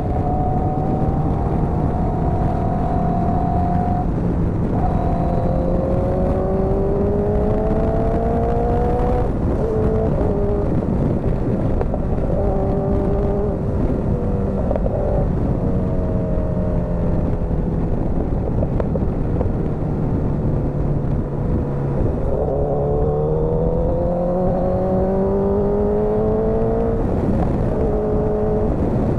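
Motorcycle engine running under way, its pitch climbing as it accelerates and dropping sharply at a gear change about ten seconds in and again near the end, sinking slowly in between as it eases off.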